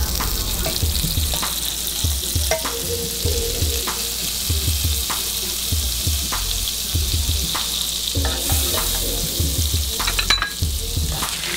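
Vegetables sizzling in butter as they sauté in a hot frying pan, a steady hiss, with the clatter of a spatula stirring them.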